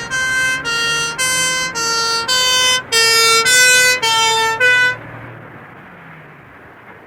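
Cartoon vehicle siren sounding a hi-lo two-tone pattern of about ten alternating notes, roughly two a second, that stops about five seconds in. A low engine rumble runs underneath and continues after it.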